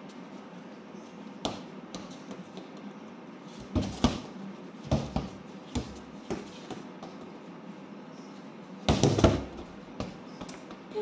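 Basketball bouncing on a hard floor and against walls: scattered thumps, a quick run of them about four seconds in and the loudest cluster about nine seconds in.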